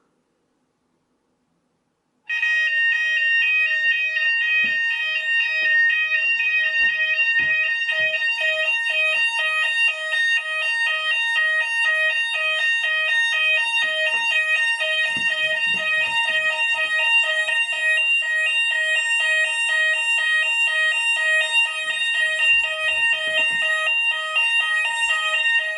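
Fire alarm sounders going off in a fast warbling tone, the system in alarm after a Hochiki detector is tested. The alarm starts suddenly about two seconds in and keeps sounding, with a few low knocks under it.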